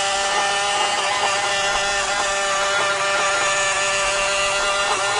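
Huina RC excavator's small electric slew motor and plastic gears whining steadily as the upper body swings round on its tracks.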